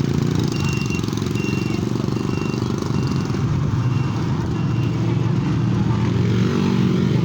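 A motor vehicle engine running steadily, with a string of short, evenly spaced high beeps for the first few seconds.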